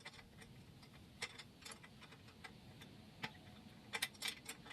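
Faint, irregular clicks and small metal taps of a hand tool working the bolt and lock nut of a snowblower's crawler-track tensioner, with a cluster of stronger clicks near the end.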